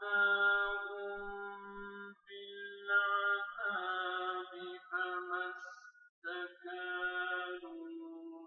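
Arabic Quran recitation: one voice chanting melodically, holding long notes with short pauses for breath, played through a television's speaker.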